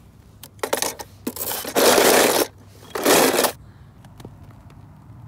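Snow crunching and scraping in three bursts, the longest and loudest lasting about a second, as toy cars are pushed into it.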